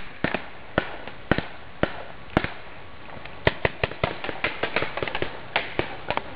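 Paintball markers firing, a string of sharp pops. Single shots come about every half second at first, then a quicker volley in the second half.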